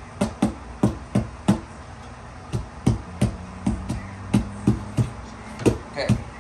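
Background music made of sharp, quickly decaying hits, about three a second, with a short pause about two seconds in.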